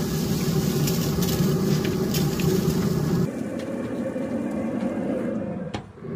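A trigger spray bottle misting liquid onto beef short ribs on a hot pellet-grill grate: several quick hissing squirts over about three seconds. Under it runs the steady hum of the Pit Boss Tailgater pellet grill running, which goes on alone afterwards, with a brief knock near the end.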